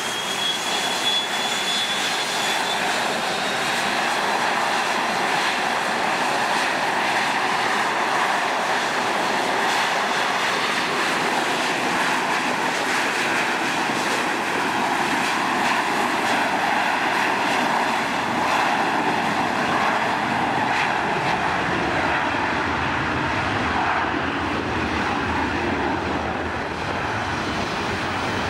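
Jet engines of a McDonnell Douglas MD-80-series airliner spooling up, with a brief rising whine near the start, then running steadily at take-off power. The noise is loud and continuous.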